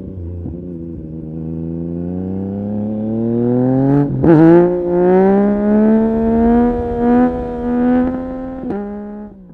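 Yamaha MT-09 SP's 890 cc inline three-cylinder engine and exhaust under acceleration, heard from the rider's seat. The engine note climbs steadily, breaks sharply at a gear change about four seconds in and carries on at higher revs. Near the end the revs drop suddenly and the sound fades out.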